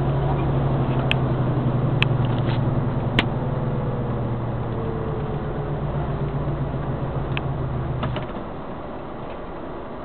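Motor vehicle engine running with a steady low drone, heard from inside the cab while driving, with a few sharp clicks or rattles in the first few seconds. About eight seconds in the drone drops away as the vehicle eases off.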